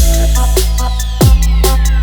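Electronic dance music in a dubstep style, with a heavy sustained bass and deep kick drums, sharp snare hits and a long falling synth sweep.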